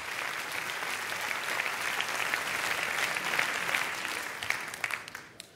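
Applause: many hands clapping densely, fading out near the end.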